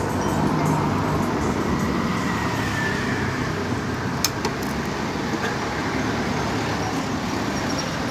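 FRD-1000 continuous band sealer with date coder running steadily, its motor and drive belts making a constant mechanical whir, with one sharp click about four seconds in.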